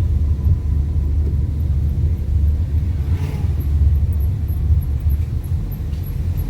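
Steady low rumble of a Fiat Linea on the move, engine and road noise heard from inside the cabin.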